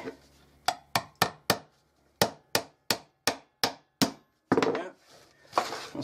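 Claw hammer driving a nail into the wooden panel of a bird nesting box: about eleven quick sharp strikes, in a run of four and then, after a short pause, a run of seven.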